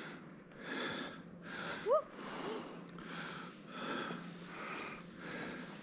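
Fast, rhythmic breathing of a skier close to the microphone, a breath about every three-quarters of a second. About two seconds in there is one short, rising vocal sound.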